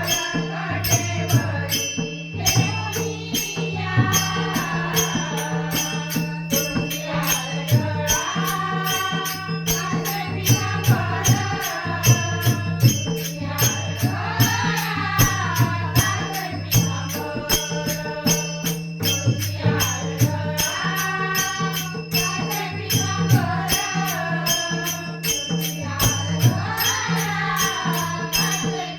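A Marathi bhajan performed live: a woman singing the devotional melody to mridang drumming, with a jingling metallic percussion beat and steady held tones underneath.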